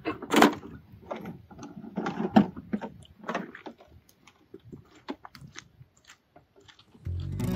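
Knocks and rattles of a metal highbanker sluice being lifted and hoisted onto a shoulder, the loudest about half a second in, then footsteps on rocky ground growing fainter. Guitar music comes in near the end.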